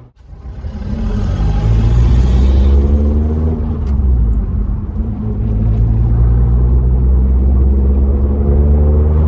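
2003 Daihatsu Sirion Rally II's 1.3-litre K3VE-2 twin-cam inline-four, its rear muffler bypassed, heard from inside the cabin while driving: a deep exhaust rumble that rises in pitch as the car accelerates, drops back, then climbs again near the end.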